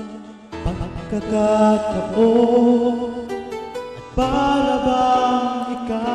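Music with long held notes, dipping briefly at the start and again just before the four-second mark before swelling back.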